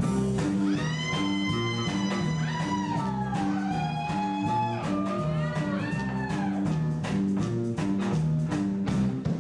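Live rock band starting a song: a repeating low guitar-and-bass riff with a lead line above it that slides and bends up and down in pitch.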